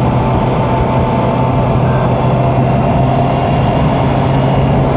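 2018 Honda CB650F's inline-four engine running at a steady cruising speed, its drone holding one even pitch, with wind rushing past.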